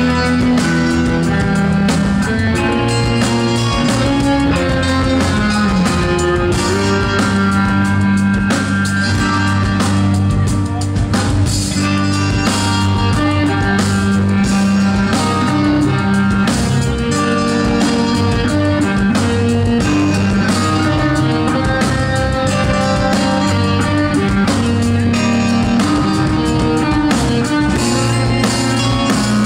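Instrumental post-rock band playing live: guitar melody lines and sustained bass notes over a drum kit, with no pauses.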